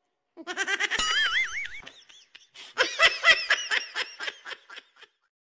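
High-pitched laughter that starts about half a second in: first a wavering, wobbling laugh, then a rapid run of laughing bursts, about four a second, that stops abruptly about five seconds in.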